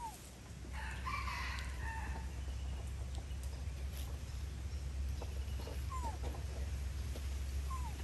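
A rooster crows once, starting about a second in. Short falling bird chirps come at the start, about six seconds in and near the end, over a steady low rumble.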